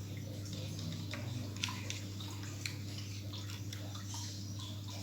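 Faint, scattered clicks and light handling noises of a laptop hard drive being worked out of its metal caddy, over a steady low hum.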